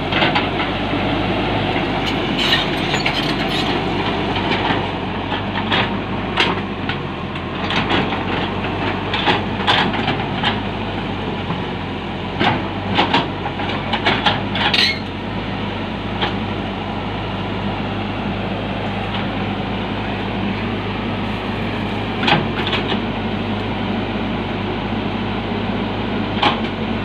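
Caterpillar hydraulic excavator's diesel engine running steadily while digging. Scattered sharp knocks and clanks come from the work, mostly in the first half-minute's first half and twice near the end.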